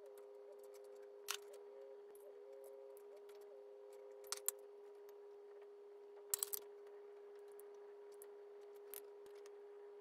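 A few light clicks and taps of wooden chopsticks against a ceramic plate and the tofu pockets as toppings are set on the inari sushi, the loudest a quick cluster of three about six seconds in. Under them runs a faint steady hum, with a soft tone stepping up and down in pitch during the first half.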